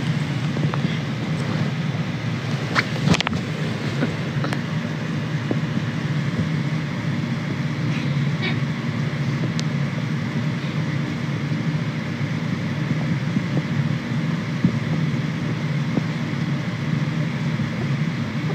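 Steady low rumble and hiss of a vehicle cabin, with a few light clicks in the first five seconds.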